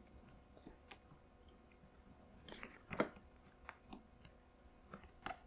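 Faint, scattered clicks and light scrapes of small metal and plastic airsoft gas pistol parts being handled and fitted, with the loudest click about three seconds in.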